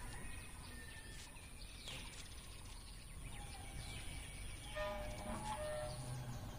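Faint outdoor ambience: a low steady hiss with scattered bird chirps, and a short burst of calls about five seconds in.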